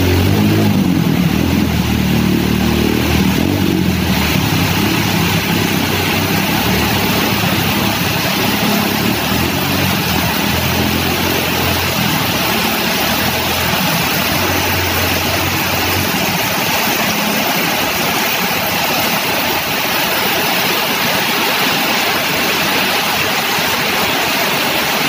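Steady hiss of heavy rain over road traffic wading through floodwater. A low engine drone from passing vehicles fades out about two-thirds of the way through.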